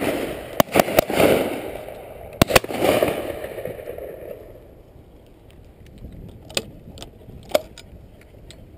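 Shotguns firing on a driven pheasant shoot: two loud pairs of shots, each pair fired in quick succession, about half a second and two and a half seconds in, each trailing off in a rolling echo. Fainter single shots from guns further down the line follow over the last few seconds.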